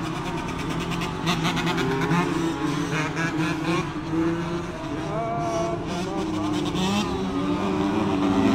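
Several supermoto motorcycle engines revving up and down together on a race track, their pitches rising and falling and overlapping as riders hold wheelies.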